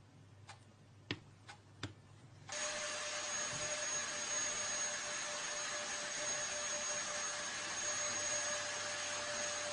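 A few faint clicks, then a steady whirring, hissing noise with a high, even whine that starts suddenly about two and a half seconds in and holds unchanged.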